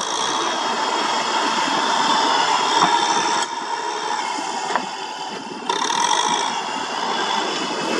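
Kubota M6040 tractor's four-cylinder diesel engine running steadily as the tractor pushes mud with its front dozer blade. The engine sound drops about three and a half seconds in and comes back up near six seconds.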